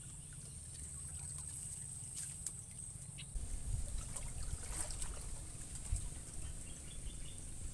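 Outdoor ambience: a steady high-pitched drone with a low rumble that grows louder about three seconds in, and a few faint clicks.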